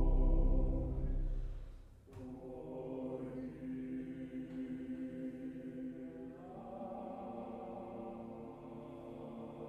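Small mixed choir singing slow, sustained chords. A loud chord fades away about two seconds in, and a quieter held chord follows, changing about two-thirds of the way through.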